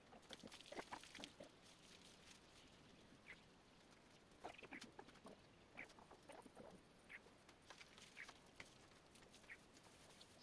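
Faint, irregular short strokes of an HB graphite pencil scratching on sketchbook paper, heard against near silence.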